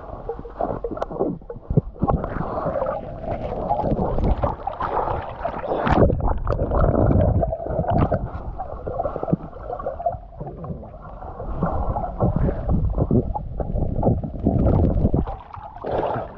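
Muffled underwater water noise picked up by a camera held under the water: gurgling and sloshing with irregular knocks and surges as a swimmer moves. Near the end the sound opens up as he breaks the surface.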